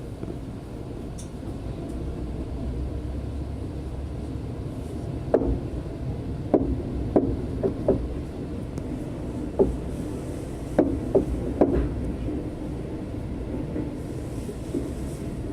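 Low, steady rumble inside a V/Line passenger carriage rolling slowly, broken by a run of sharp knocks and clunks, most of them grouped in the middle, as the carriage jolts.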